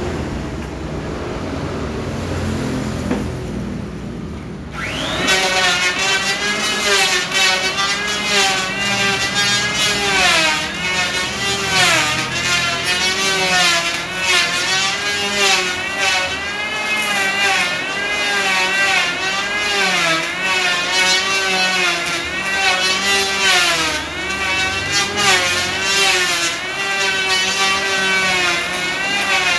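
Handheld electric power planer starting with a quick rising whine about five seconds in, after a steady rumble. It then runs while shaving a solid trembesi (rain tree) slab, its motor pitch dipping and recovering every second or two as the blade bites into the wood on each pass.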